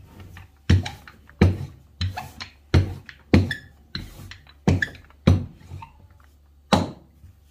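Wooden rolling pin working pizza dough on a granite countertop: a run of about eight knocking strokes, one every half second or so, that stops shortly before the end.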